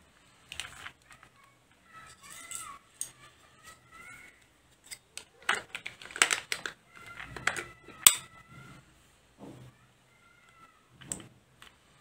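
Hard plastic clicks, knocks and rattles as the plastic body and chassis parts of a toy stunt RC car are handled and pressed together. The sharpest snap comes about eight seconds in.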